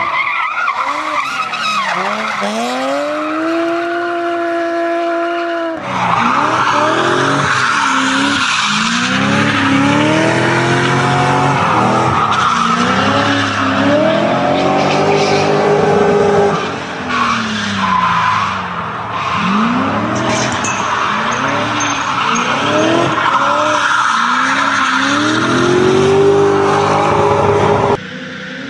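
Car engines revving hard, the pitch climbing and dropping again and again as the throttle is worked through drifts, with tyres squealing on the tarmac. The sound breaks off abruptly about six seconds in and again near the end.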